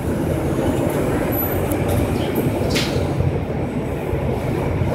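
Steady low rumble of a passenger boat's engines under way, heard inside its cabin.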